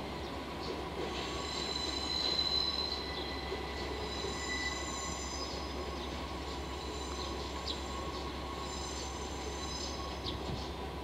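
Wheels of loaded Hoki 800 ballast hopper wagons squealing against the rails in three high-pitched spells as the wagons are shunted slowly, with a few sharp clicks from the wheels and a steady low rumble underneath.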